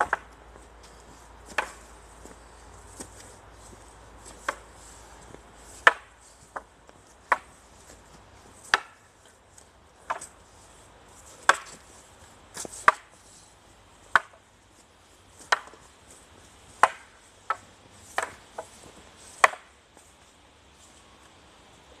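Two long wooden staffs knocking together in a paired drill: sharp clacks about every second and a half, a few in quick pairs. The clacks stop near the end.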